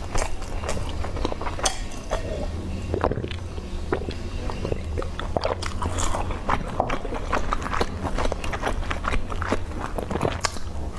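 Close-miked chewing of grilled skewered sausage: a quick run of small wet clicks and smacks from the mouth over a low steady hum, with a fresh bite into a sausage near the end.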